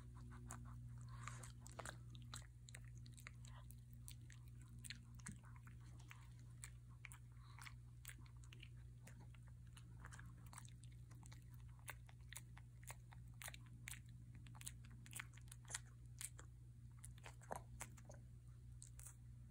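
A Shih Tzu crunching and chewing a hard prescription dog treat: a long run of sharp, irregular crunches.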